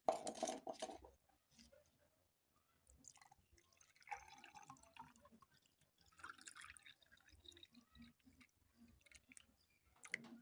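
Water dripping and splashing in short, irregular bursts, the loudest right at the start.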